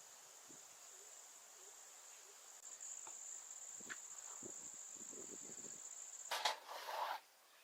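Crickets trilling in one steady, high, unbroken tone. Near the end the trill stops suddenly and a short clatter of sharp knocks and handling noise follows, louder than the trill.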